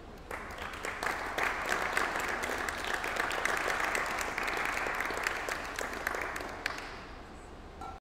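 Audience applauding, starting abruptly just after the opening and tapering off near the end.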